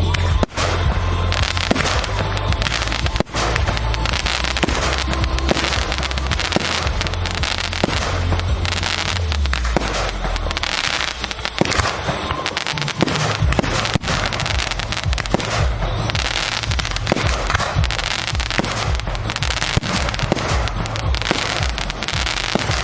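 Fireworks display: dense, continuous crackling and popping from bursting shells and their crackling stars, with a deep rumble under the first half.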